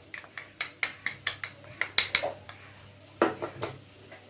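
Spoon clinking and tapping against a bowl in a run of sharp, irregular taps as chilli powder is spooned into a chicken marinade.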